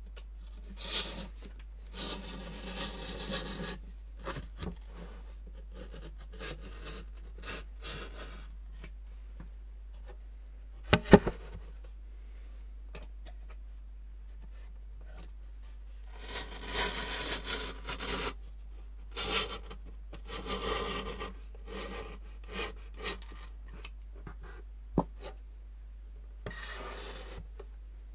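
Rubbing and scrubbing on paper in short bursts of a second or two, with quiet gaps between them. A pair of sharp knocks comes about eleven seconds in.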